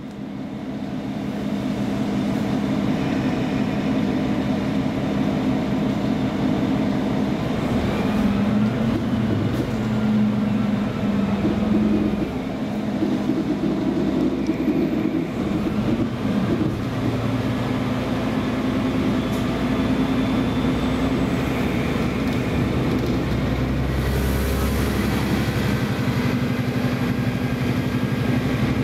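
KiHa 47 diesel railcar's engine idling steadily while the train stands in the station, with a short hiss of air and a deeper rumble about three-quarters of the way through.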